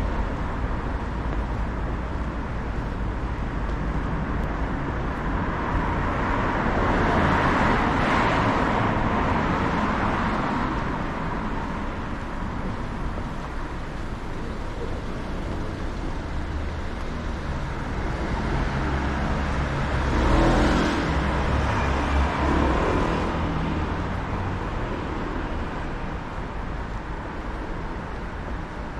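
City street traffic: cars passing along the road under a steady background din, one swelling past about seven seconds in and a louder vehicle engine going by around twenty seconds in.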